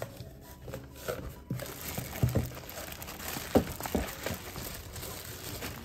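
Thin plastic polybag crinkling and cardboard box flaps rustling as a parcel is unpacked by hand, in irregular sharp crackles and a few bumps, the loudest about three and a half seconds in.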